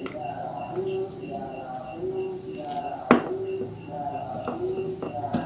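Crickets and other night insects chirping: a steady high trill with quick regular chirps about four times a second, over a lower call that repeats about once a second. A single sharp click about three seconds in.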